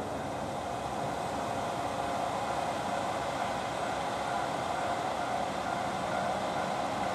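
KiHa 40 series diesel railcar's engine running steadily, an even hum with no change in pitch.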